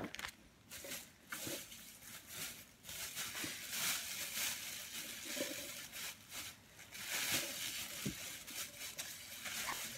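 Faint, irregular rustling and light clicks of small items and a shopping bag being handled.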